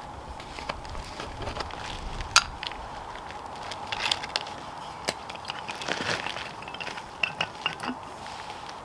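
Irregular clicks, taps and light metallic clinks of small metal camping-stove parts being handled and set in place, with a few brief ringing clinks near the end.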